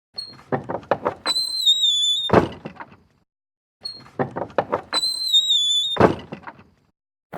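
A sliding stable door rattling along its track with a high wavering squeal, then banging shut; the same sequence comes twice.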